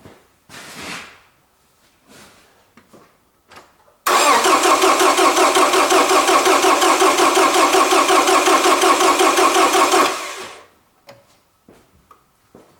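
Toyota Camry's starter motor cranking the engine for about six seconds with a fast, even pulsing, then stopping. The fresh battery spins it briskly, but the engine never fires because the fuel tank is empty. Faint small knocks come before and after.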